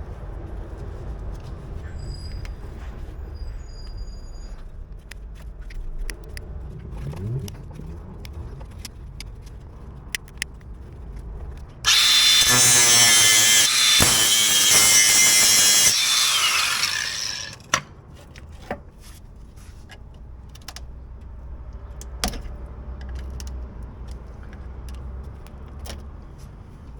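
A handheld power tool runs in one loud burst of about five seconds about halfway through, winding down as it stops. Scattered clicks and knocks of tool work come before and after it.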